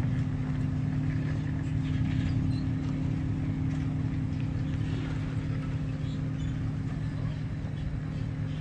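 An engine running steadily at idle with an even, unchanging low hum.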